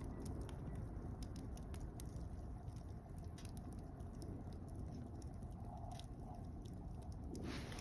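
Wood fire of mixed softwood and hardwood logs burning in a steel fire pit: scattered sharp crackles and pops over a low steady rumble of the flames. A hiss comes in near the end.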